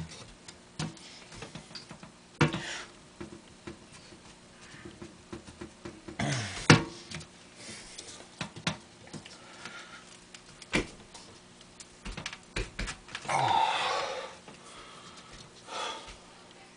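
Scattered light knocks and clicks of paper balls and a nail-studded wooden board being handled, with a few short breathy bursts, the longest about a second long near the end.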